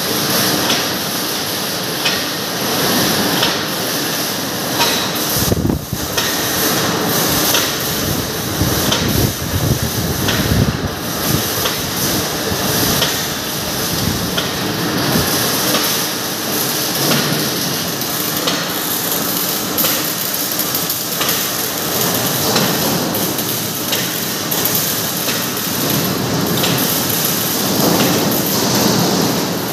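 Steel-strip coiling machinery running: cold-rolled steel strip winding onto a belt-driven recoiler, a loud steady mechanical din with frequent clanks and knocks.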